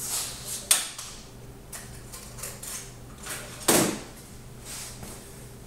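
Metal tools clattering in a lathe workshop: two sharp knocks, about a second in and again near the middle, with a few lighter clicks between, over a steady low hum.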